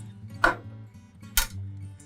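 Background acoustic guitar music, with two sharp knocks about a second apart from the metal parts of a key machine being handled during reassembly.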